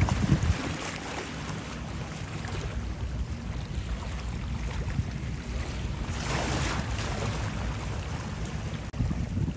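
Wind buffeting the microphone as a steady low rumble, over choppy water washing at the shore, with a brief hissing swell about two-thirds of the way through.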